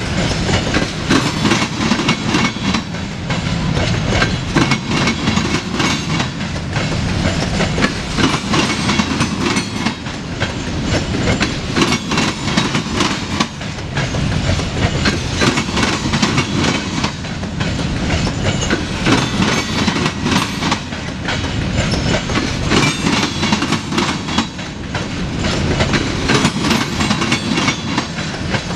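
Freight train of covered hopper cars rolling past, steel wheels clicking and clattering over the rail joints above a steady low rumble.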